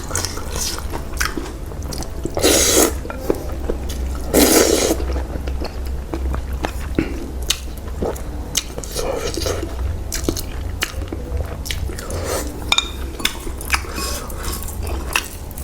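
Close-up mouth sounds of a person eating spicy noodle soup and biting fresh chilies: chewing and crunching with many small clicks, and two louder breathy slurps about two and a half and four and a half seconds in.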